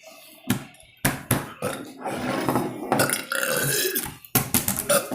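A person burping loudly after drinking soda: a few short, sharp sounds in the first second and a half, then long, drawn-out burps with brief breaks for the rest.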